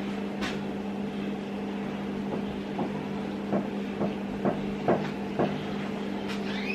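A steady low mechanical hum, with a series of light knocks of cookware and utensils being handled between about two and five and a half seconds in.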